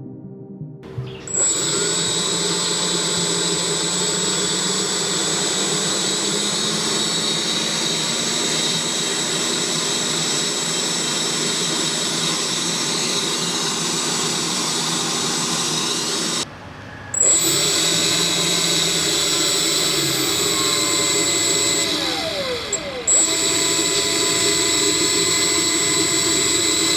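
Small high-speed DC motor driving a fan, running with a steady high whine. It cuts out briefly about two-thirds of the way through and starts again, then dips in speed for a moment near the end.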